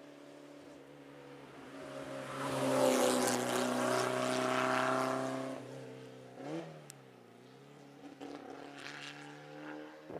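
Classic rally car's engine driven hard along a stage, rising to its loudest about three seconds in. About six and a half seconds in the pitch drops and then climbs again at a gear change, and the engine keeps pulling more faintly after that.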